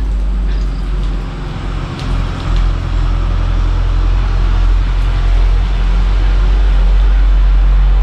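A loud, steady low rumble with a hiss over it.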